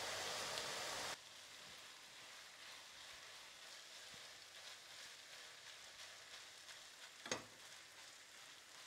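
Ground beef and onion frying in a nonstick pan, a faint steady sizzle with small scraping ticks as a spatula stirs it. A louder even hiss in the first second cuts off suddenly, and there is one sharp click a little past seven seconds in.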